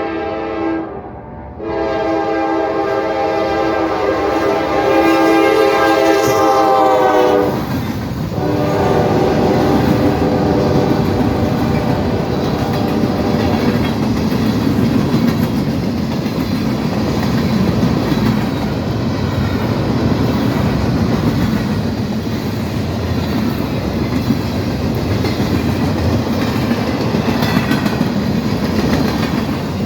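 Locomotive's multi-tone horn sounding a long, loud blast, briefly broken about a second in, its pitch dipping slightly near the end, then a short final toot. After that a fast train passes with a steady rush of wheels clattering on the rails.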